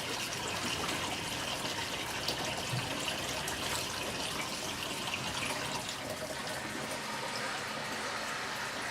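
Steady rush of water in a semi-automatic washing machine's tub.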